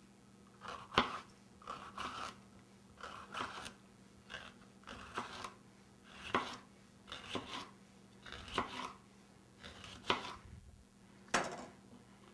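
A kitchen knife slicing a yellow bell pepper into strips on a wooden cutting board: about ten cuts, roughly one a second, each ending in a sharp knock of the blade on the board.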